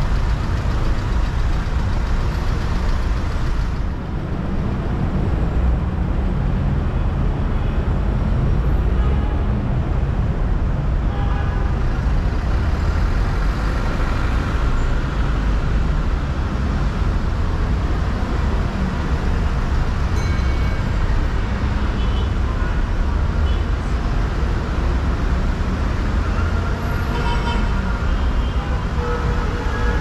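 City street traffic: a steady low rumble of car engines and road noise, with a few short higher tones in the second half.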